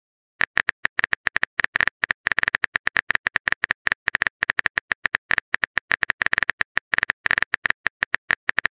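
Keyboard typing sound effect: a fast, irregular run of short key clicks, starting about half a second in, as a text message is typed out.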